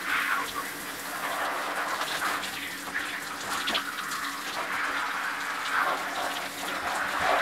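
Shower running, spraying water onto a person and the stall floor, with a few short knocks.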